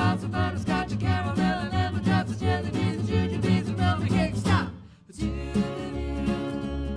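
Background music with fast string playing. It fades out briefly about five seconds in, and then another piece starts with long held notes.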